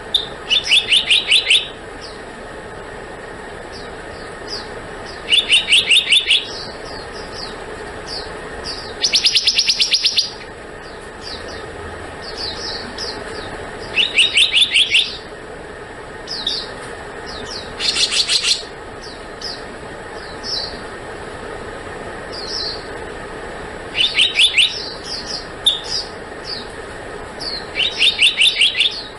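Black-naped monarch calling: about seven quick series of rapid high notes, each lasting about a second and coming every few seconds, with single short notes in between, over a steady background hiss.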